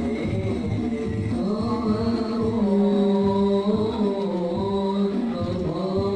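Background music: a singing voice holding long, gliding notes over a steady low beat.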